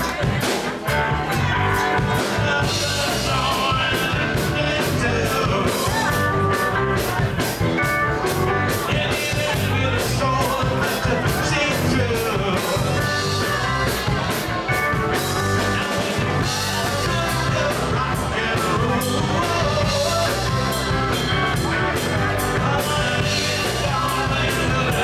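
Live rock band playing: a woman singing lead over electric guitars and a drum kit keeping a steady beat.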